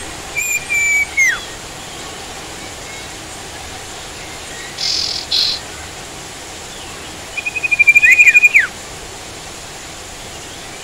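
Sirtu songbird calling: a clear whistled note that drops off steeply just after the start, two short harsh chirps around the middle, and a fast, loud trill ending in downward-sliding notes a little before the end. A steady hiss of rain runs underneath.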